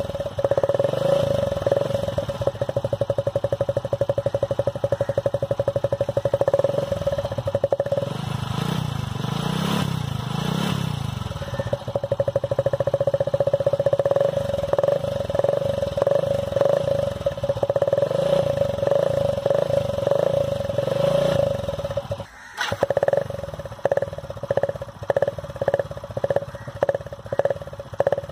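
Motorcycle engine running with an empty aluminium drink can tied over the exhaust outlet, giving a buzzing tone that pulses with the engine's firing. Near the middle the tone drops away while the engine speed rises and falls. After a brief break near the end, the sound comes in short, evenly spaced pulses, about two a second.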